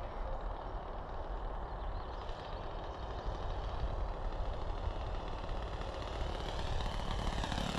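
The .70 four-stroke nitro engine of a radio-controlled Tiger Moth biplane running throttled back on its landing approach, over a steady low rumble. It grows gradually louder as the plane comes in, and its pitch rises near the end.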